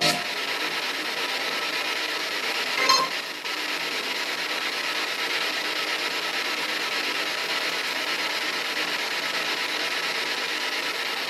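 Steady static hiss from a ghost-box device, with one brief louder crackle about three seconds in.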